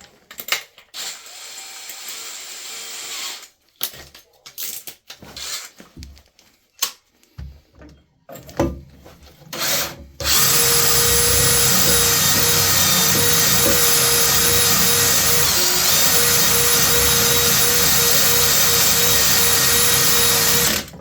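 Light handling and knocking, then about halfway through a power tool starts and runs steadily at one pitch for about ten seconds, cutting through the damaged pipe, and stops just before the end.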